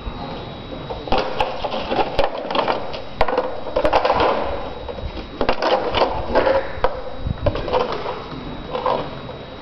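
Thin plastic bottle crinkling and clattering on a stone floor as macaques grab and tussle over it: irregular crackles and sharp knocks, starting about a second in.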